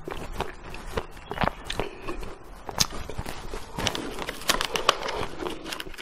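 Close-miked eating of small chocolate ice cream pieces: a run of irregular biting and chewing crunches and clicks.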